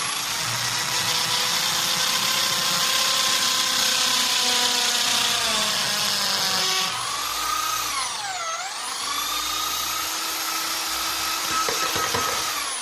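Electric drill running at speed while it bores into a roll of PVC card-printer ribbon. About eight seconds in, the whine dips sharply in pitch and then climbs back up as the motor slows against the tough plastic and recovers.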